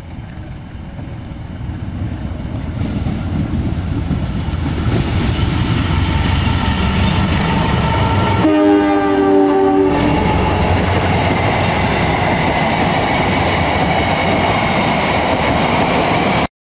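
A diesel-electric locomotive hauling a passenger train approaches at speed and passes close by, its engine and wheels growing to a loud rumble. Its horn sounds once for about a second and a half midway through, then the coaches rumble and clatter past. The sound cuts off suddenly near the end.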